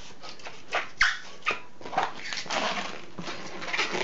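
Inflated black latex twisting balloon being handled, giving short squeaks and rubbing sounds. The loudest squeak comes about a second in.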